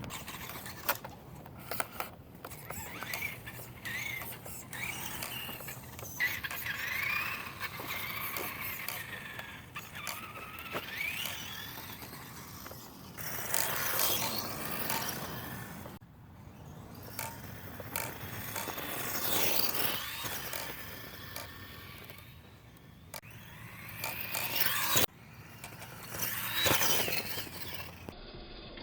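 Brushed electric motor and drivetrain of an RC rock-racer truck whining, the pitch rising and falling again and again with the throttle as it drives over rough ground, with scattered sharp knocks.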